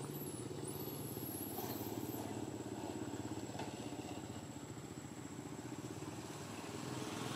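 An engine running steadily, a low even hum with a fast regular throb, with faint high whistling in the first two seconds.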